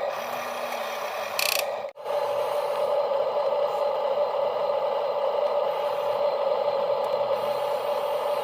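Small electric gear motors of a radio-controlled toy construction machine running steadily with a gritty gear whirr. The sound drops out for an instant about two seconds in, just after a short high hiss, then carries on.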